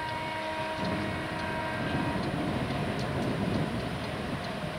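Electric train running nearby: a steady rumble with a whine of several high tones that fades out about two seconds in.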